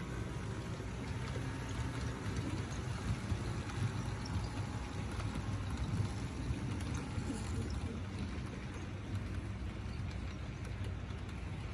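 Model freight train rolling past: a steady low rumble of its wheels running on the track as the locomotives and covered hopper cars go by.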